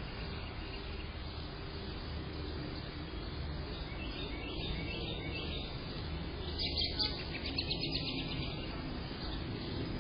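Steady outdoor background noise, with bursts of high, rapid bird chirping in the second half.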